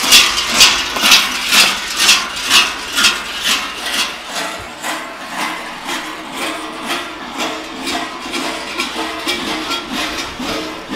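Large bells worn by Klaubauf figures clanging in a steady rhythm, about two strokes a second, somewhat weaker after about four seconds, over a low rumble.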